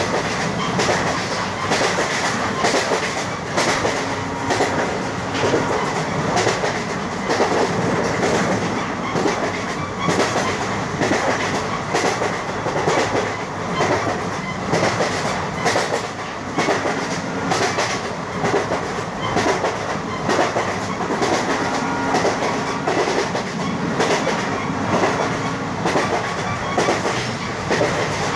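Passenger train wheels clattering rhythmically over the rail joints at cruising speed, heard from an open coach doorway, over a steady rumble of running noise.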